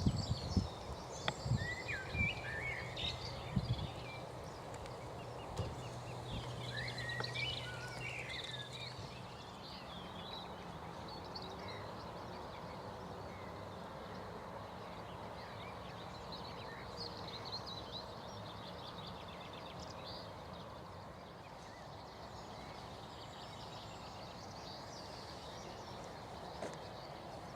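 Wild songbirds singing and chirping in short phrases, busiest in the first nine seconds and fainter afterwards, over a steady outdoor background noise. A few low thumps come in the first few seconds.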